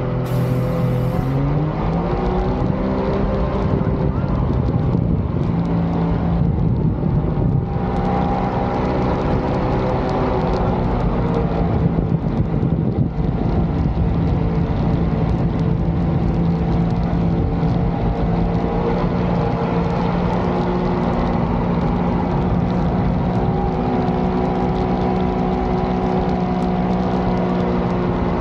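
Supercharged Sea-Doo engine driving a mini jet boat under way. The revs climb about two seconds in, then hold steady with a slight dip near the end.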